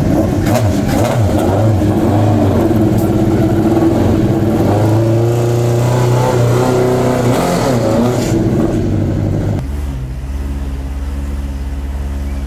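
Silhouette hill-climb race car's engine revving while parked, with quick blips that rise and fall and then held revs. About ten seconds in it cuts to a race car engine idling steadily, lower and quieter.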